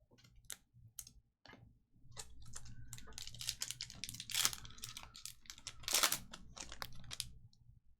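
Trading cards being handled and flipped through: a run of quick clicks and card-on-card rustling, thickest from about two seconds in until near the end.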